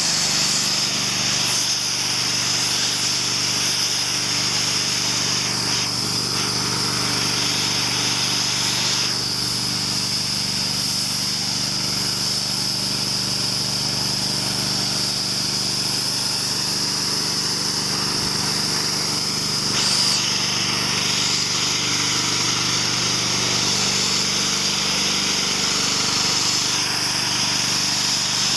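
Pressure washer running steadily: a motor's even hum under the strong hiss of the water jet, which flares briefly about twenty seconds in.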